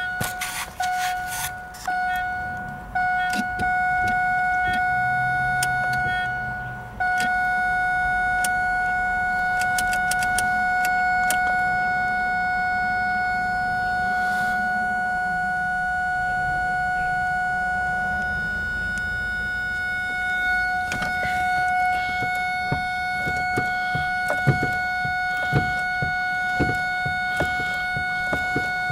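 2001 Ford Focus warning chime sounding as one constant tone instead of chiming, the symptom of its no-start fault when the key is turned, with the car acting as if the key is off. The tone cuts out briefly a few times in the first seven seconds, then holds steady, with scattered clicks in the last third.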